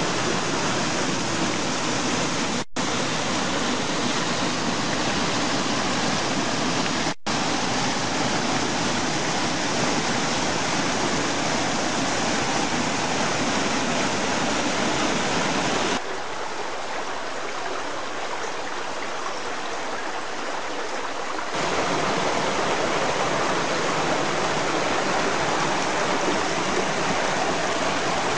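Stream water rushing and splashing over rocks and small cascades, a steady rush. It cuts out for an instant twice in the first several seconds, and about halfway through it turns quieter and thinner for some five seconds before the full rush returns.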